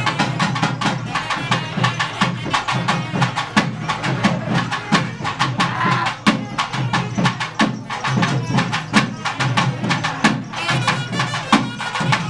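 Naiyandi melam, the Tamil folk band of drums and nadaswaram, playing a fast, driving beat: dense, rapid drum strokes under a wavering double-reed melody. It is the beat played for devotees' trance dancing.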